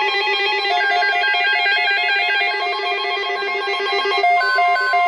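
Electronic emergency alert tones: a loud, rapidly warbling multi-tone alarm. About four seconds in it changes to a slower two-note beeping, about three a second, over a steady tone.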